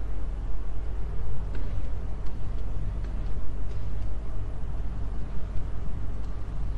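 Steady low electrical hum under a rumbling background noise, with no speech.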